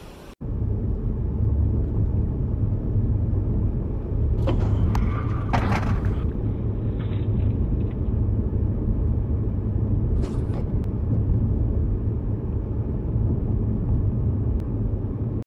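Steady low rumble of a pickup truck driving across a lawn, heard through a security camera's microphone. A few short scraping or knocking noises come about four to six seconds in and again about ten seconds in.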